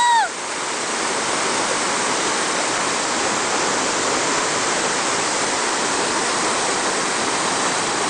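Whitewater rapids of a river waterfall, a steady, loud rushing of water pouring over rock ledges. Right at the start a brief high-pitched call rises and falls.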